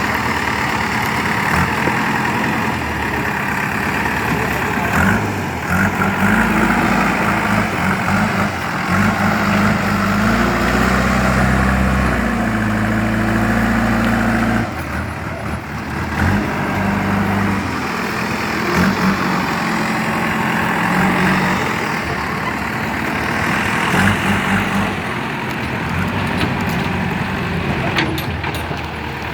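Kirloskar diesel engine of a 2008 JCB 3DX backhoe loader running under working load. Its revs step up and down as the machine works, and it is heaviest from about ten to fifteen seconds in before easing back.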